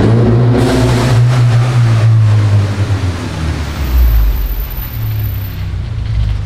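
Ford Mustang's 2.3-litre EcoBoost four-cylinder engine running as the car drives slowly through an underground car park, a loud, steady low drone.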